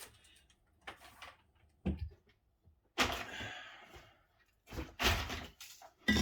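A few knocks and clatters of tools and objects being moved around a workbench, with a loud knock about five seconds in.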